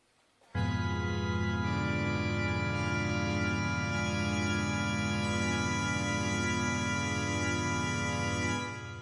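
A loud organ chord starts suddenly about half a second in and is held steady for about eight seconds, then is released and fades away.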